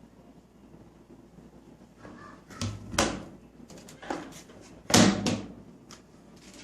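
Washing machine banging: a handful of heavy, irregular thuds and knocks, the loudest two about three and five seconds in, over a low steady hum.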